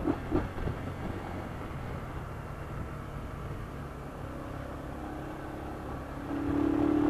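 Motorcycle engine running steadily at low road speed, heard from on the bike, with road and wind noise. A steady humming note swells near the end.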